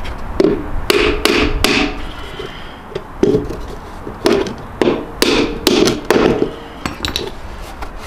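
Claw hammer driving nails into a timber board: a run of about four quick blows in the first two seconds, a single blow a little after three seconds, then five more at roughly two a second, each blow ringing briefly.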